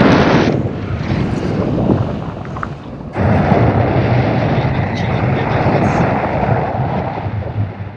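Airflow of a paraglider in flight buffeting an action camera's microphone as a loud, steady rush of wind. It eases for a moment, then jumps back up about three seconds in.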